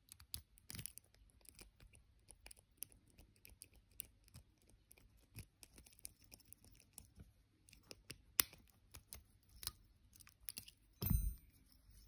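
Faint scratching and clicking of a half-diamond pick and tension wrench working the three pins of a small Abus 64Ti/20 padlock. About eleven seconds in comes a louder metallic clack with a brief ring as the picked lock's shackle springs open.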